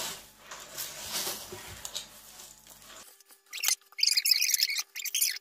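Rice cereal being stirred into sticky melted marshmallow in a pan. It starts with faint scraping, then from about three seconds in turns to loud crackling and squeaking of the mixture.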